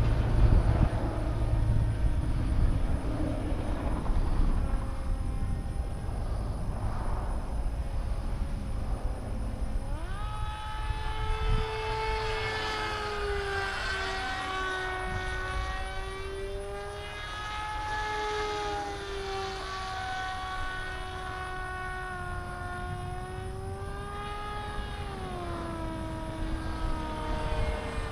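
Electric RC flying wing with a 3536/5 brushless motor and propeller, heard first as low rumbling noise. About ten seconds in, a propeller whine jumps up in pitch as throttle comes on, then wavers up and down with the throttle. It drops near the end and climbs again.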